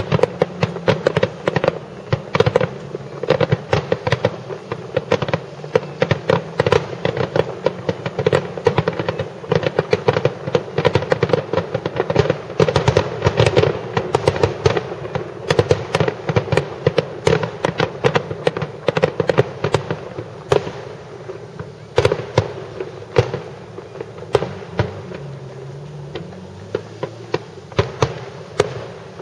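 A rapid, dense barrage of aerial firework shells bursting, with many sharp cracks and reports in quick succession over a steady low background hum. The bursts thin out to scattered cracks in the last third.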